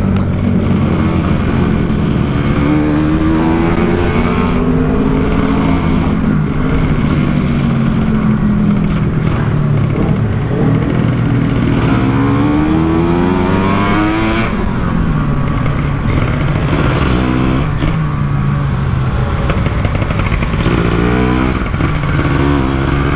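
Kawasaki Ninja 150 two-stroke single-cylinder engine, fitted in a Yamaha RX-King and ridden hard. The revs rise and fall again and again through gear changes.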